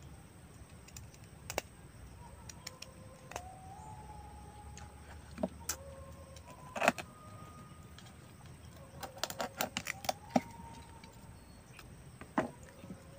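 Hard oyster shells clicking and knocking against each other as they are handled, in scattered sharp clicks with a quick cluster about nine to ten seconds in. A faint thin tone that shifts in pitch comes and goes underneath.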